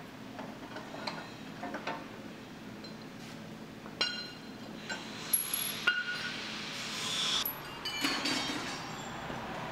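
Metal hardware and hand tools clinking and tapping against a truck's steel frame: light taps at first, then sharper, ringing clinks from about four seconds in.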